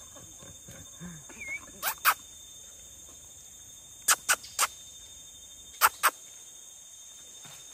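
Steady, high-pitched insect drone of tropical forest, broken by sharp, very short clicks or chirps in twos and threes, about two seconds apart.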